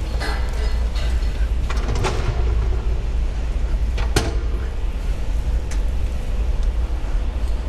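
Metal knocks and clanks from the manhole covers on top of a stainless tank trailer being opened one after another, the sharpest about four seconds in, over a steady low rumble.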